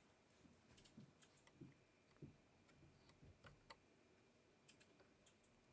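Near silence with faint, scattered small clicks and a few soft knocks from handling an M.2 NVMe drive and its screws on a motherboard.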